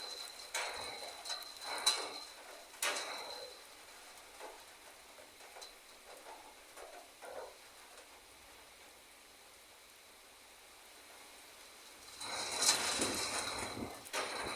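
Rain pouring down in a thunderstorm downpour, a hiss that swells louder at the start and again near the end and eases in between.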